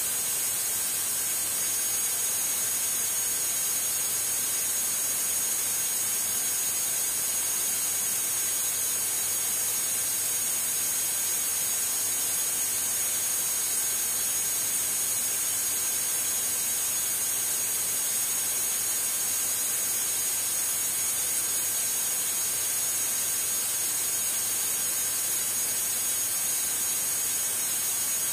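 Steady hiss with a faint, thin, high steady whine from the DA42's cockpit audio feed between radio calls, with no voices on the line.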